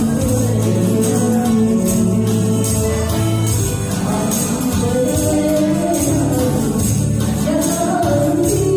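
A woman singing a Taiwanese pop song into a microphone over an amplified backing track, with jingling percussion keeping the beat.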